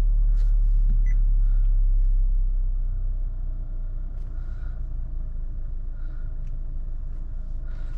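Truck engine of a converted-truck RV running at idle, a steady low rumble heard from inside the cab. It eases off a little about three seconds in.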